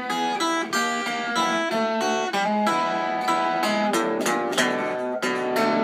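Archtop guitar playing a blues fill between sung lines: a run of separately picked notes, each ringing briefly.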